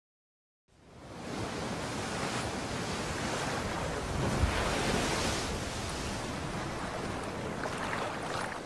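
Ocean surf breaking on a beach: a steady wash of waves that fades in after a moment of silence and swells a little louder about four to five seconds in.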